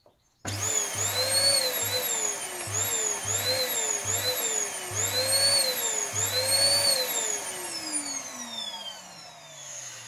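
Canister vacuum cleaner motor revved by switching it on and off repeatedly with a foot: the whine rises and dips about seven times, then the motor is left to spin down in one long falling whine that fades near the end.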